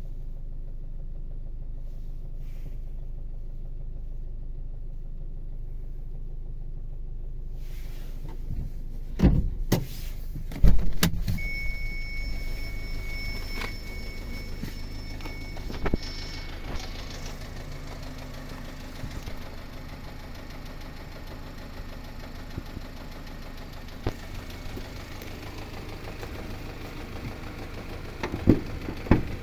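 Subaru Forester's 1.8-litre CB18 turbo boxer engine running cold, a steady low hum with a few loud thuds about nine to eleven seconds in and a steady high beep for about five seconds after them. The owner hears a knocking noise at cold start as an abnormal sound that fades once the engine warms.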